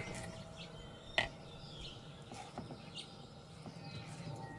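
Kitchen knife cutting into a whole jackfruit on a wooden cutting board, mostly quiet, with one sharp click about a second in. Faint bird chirps in the background.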